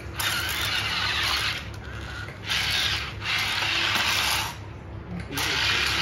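Electric motors and plastic gearboxes of radio-controlled construction models whirring in four bursts of about a second each, over a steady low hum.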